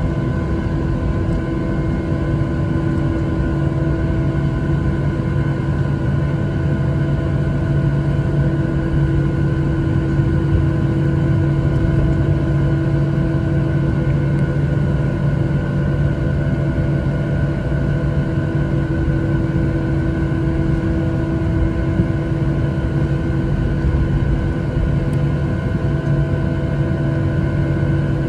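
Boeing 737-800's CFM56-7B turbofan engines heard inside the cabin over the wing while taxiing: a steady hum with several fixed whining tones over a low rumble, with no spool-up.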